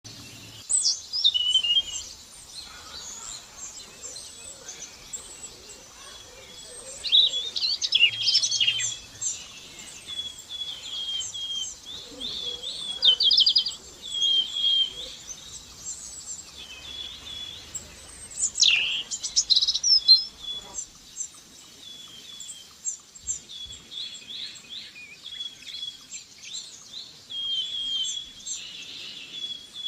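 Songbirds singing outdoors: many short, high chirps and trills repeated throughout, with several louder bursts of song.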